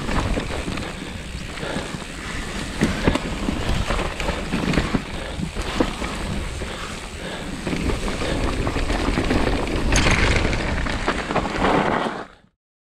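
Mountain bike ridden fast down a dirt forest trail: tyre noise on the dirt with frequent knocks and rattles from the bike, and wind noise on the camera microphone. It cuts off suddenly near the end.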